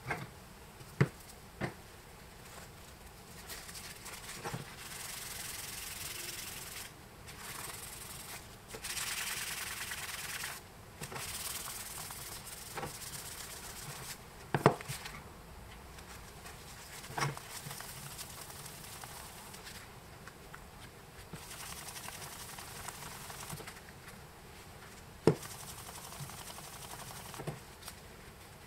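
A paper towel rubbing metal polish onto the metal rim of a Bakelite telephone handset: a hissy rubbing in spells of a second or two, with gaps between. A few sharp clicks and knocks come in between the spells, the loudest about halfway through and near the end.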